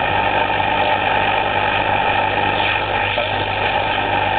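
Old valve radio being tuned between stations: steady static hiss with a low hum under it, and faint whistles sliding in pitch about midway as the dial turns.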